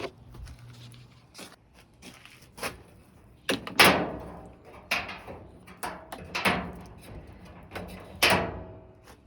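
Clanks and knocks of a dryer's sheet-metal panels and parts being handled during a teardown: about six sharp metallic strikes with a short ring after each, the loudest about four seconds in.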